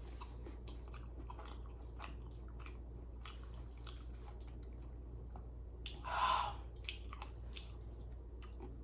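Close-miked chewing of a sauced jumbo prawn, with many small wet mouth clicks and one louder, noisier mouth sound about six seconds in.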